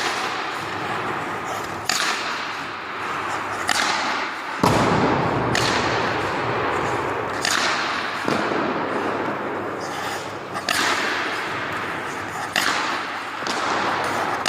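Warrior hockey stick, its shaft repaired from the inside, taking repeated hard shots: a sharp crack of the blade striking the puck about every one and a half to two seconds, over a steady rushing background. The stick holds under the shots.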